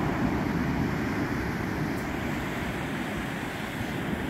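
Surf breaking and washing up a sandy beach, a steady, unbroken wash of waves.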